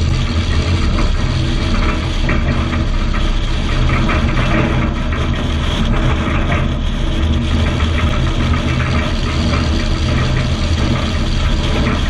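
Dodge Ram 3500 dually's 5.9L Cummins turbo diesel running steadily at highway cruising speed, heard from outside the truck with a constant rush of road and wind noise.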